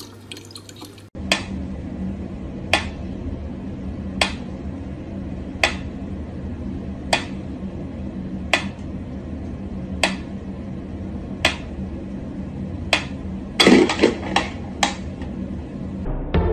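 Mechanical pyramid metronome ticking slowly and evenly, one sharp tick about every second and a half, over a low steady hum. Near the end comes a quick flurry of louder knocks and clicks.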